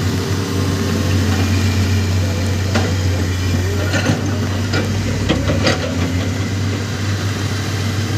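Heavy diesel engines of a wheel loader and a tracked excavator running steadily as the loader scoops and lifts a bucket of earth and rock. A few sharp clanks and knocks sound around the middle.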